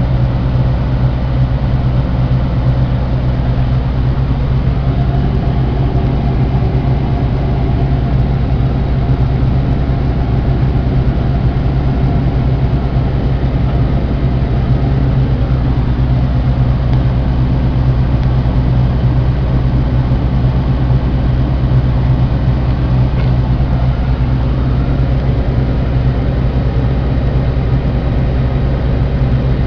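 New Holland TR70 rotary combine running steadily under load while harvesting corn: an unbroken low engine-and-machinery drone with a strong steady hum. Its rotor is set faster than normal for wet, hard-shelling corn.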